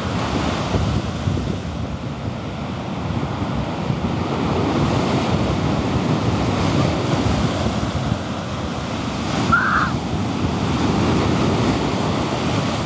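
Ocean surf breaking and washing up the beach, with wind rumbling on the microphone. About two-thirds of the way in there is a brief high squeak.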